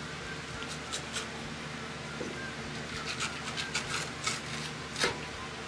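Kitchen knife working on a wooden cutting board as fish fillets are skinned: scattered light clicks and scrapes, the sharpest about five seconds in, over a steady low hum.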